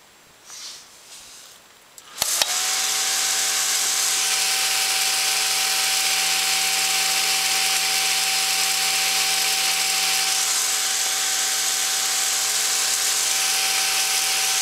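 A computer power supply switched on with a sharp click about two seconds in, and the small fan on the heatsink spins up at once and runs steadily: a loud whir with a constant whine over a low hum. Before the click there is only a little handling rustle.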